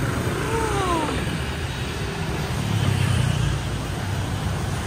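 Street traffic of motorbikes, scooters and cars passing, a steady rumble of engines and tyre noise. A short falling tone sounds about half a second in, and the engine rumble swells briefly around the three-second mark.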